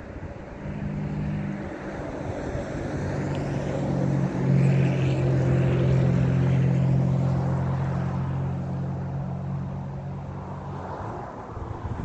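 A passing engine: a steady low hum comes in, grows louder toward the middle, then fades away and stops near the end.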